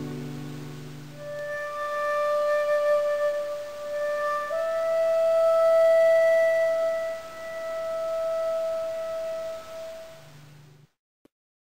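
Slow instrumental background music of long held high notes, with a lower accompaniment dropping away early on and the melody stepping up a note about four and a half seconds in. It fades out and cuts to silence near the end.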